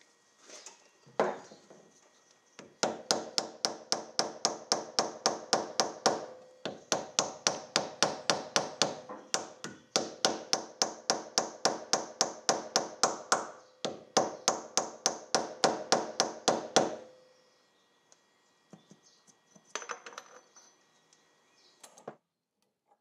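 Rapid light hammer taps on metal at the crankcase window of a 1937 Scott two-stroke engine, about four or five blows a second in four runs, each with a short metallic ring. A single knock comes about a second in, and a brief clatter near the end.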